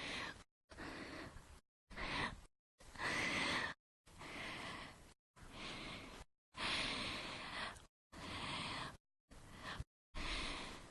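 A woman's breathing, about ten audible breaths, sighs and gasps in a row, each half a second to a second long, spliced together with abrupt gaps of dead silence between them.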